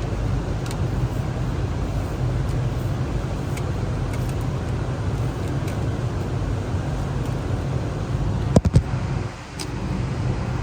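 Four-cylinder Mercedes diesel engine of a Freightliner MT45 step van idling steadily, heard from the open engine bay. Two sharp clicks near the end.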